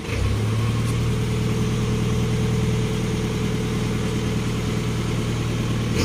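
An engine idling steadily, a low even hum.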